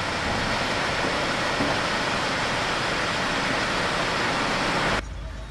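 Steady rushing noise in an underground car park, with a minivan running beside its open sliding door. It cuts off abruptly near the end.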